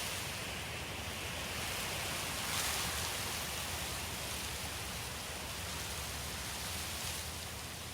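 Steady rushing hiss of storm water.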